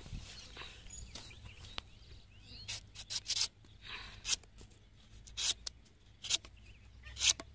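Curved sickle blade slicing into the husk of a tender palmyra (toddy palm) fruit. A series of short, crisp cutting strokes at an uneven pace begins about three seconds in.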